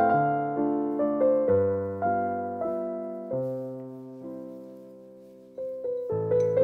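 Gentle background piano music, single notes and chords that each ring and fade. It slows and softens to a quiet lull, then a new phrase comes in near the end.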